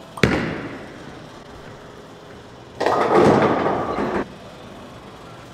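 A ten-pin bowling ball lands on the wooden lane with a thud about a quarter second in and rolls, then crashes into the pins about three seconds in, a clatter lasting over a second.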